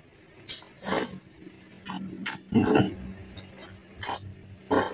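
Close-miked slurping of noodles and wet chewing of a mouthful, in a string of short bursts about every half second to second.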